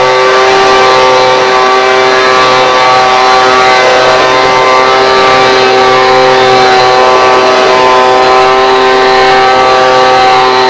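Gas-powered handheld leaf blower running steadily at one constant engine pitch, blowing air across deck boards.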